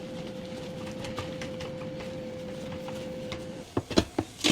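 Gari being stirred into a thick paste in a pot: the spoon scrapes with light irregular knocks over a steady hum, then gives a few louder knocks near the end.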